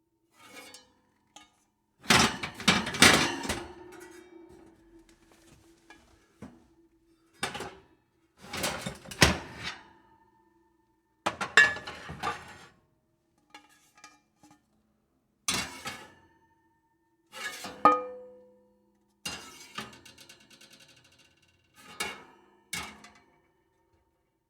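Metal oven pans clattering and clanking as they are handled and set down, in separate bursts every couple of seconds with silence between. The loudest clatter comes about two seconds in, and one clank near the end of the second half leaves a short metallic ring.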